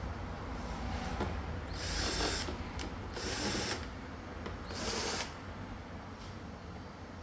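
Cordless drill-driver running in three short bursts, each under a second, unscrewing the screws that hold a washing machine's detergent drawer.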